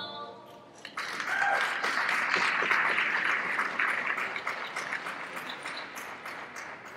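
Audience applause breaking out about a second in as the program music ends, loudest early and slowly fading.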